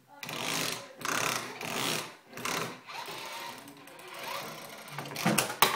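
Toy race car pushed back and forth over a plastic slide, its plastic wheels rattling in four short strokes. A couple of sharp knocks come near the end.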